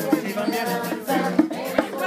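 Upbeat Latin-style music with voices and a steady percussion beat.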